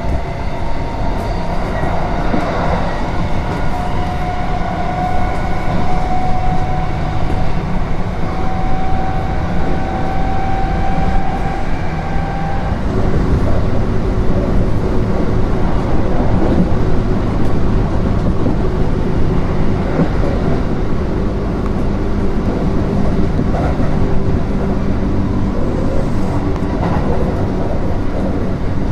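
Kintetsu 3200 series electric train running, with the whine of its traction motors rising steadily in pitch as it gathers speed. About thirteen seconds in the whine cuts off as the power is shut off, leaving the steady rumble of the wheels on the rails.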